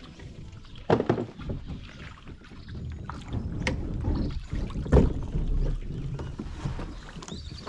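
Kayak on the water: a few irregular splashes and knocks from the paddle and hull, over a low wind rumble on the microphone.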